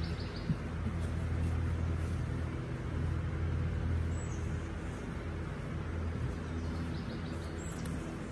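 Steady low hum of an electric box fan running.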